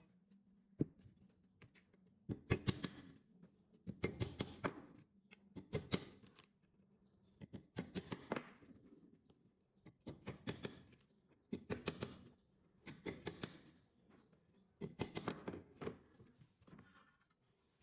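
Repeated short runs of sharp clicks and taps, about one run every second and a half, from hand work with a tool on wood.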